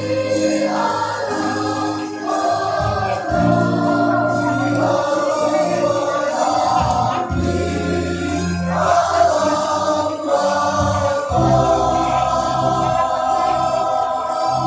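A choir of voices singing together in long held notes, with brief pauses between phrases.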